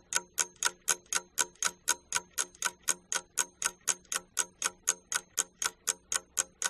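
Ticking clock sound effect, sharp even ticks at about four a second, marking thinking time for a question.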